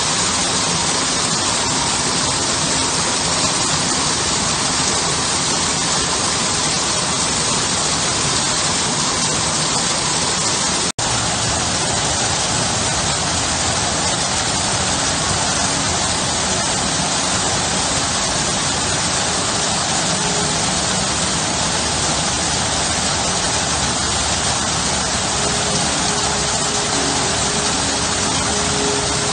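Garden waterfall: water pouring over stone ledges and splashing into a pool, a steady, even rush. The sound drops out for an instant about eleven seconds in.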